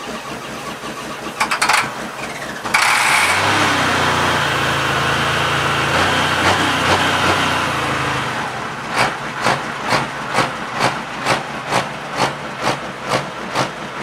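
John Deere 4640 pulling tractor's diesel engine running while an aerosol can hisses into its open air intake, the hiss starting suddenly a few seconds in and stopping near the middle. After that the engine runs with an even pulsing beat of about two a second.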